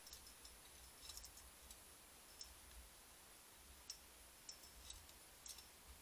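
Near silence with a faint steady high-pitched whine and about seven faint, irregularly spaced clicks.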